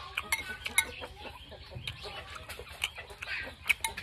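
Chickens clucking, with a few sharp clicks of a metal spoon against the bowl.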